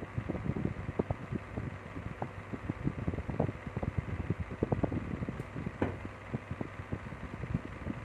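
Irregular light knocks, taps and rubbing from hands working at a table fan's opened motor hub while greasing the shaft, with one sharper click about six seconds in. A steady low rumble runs underneath.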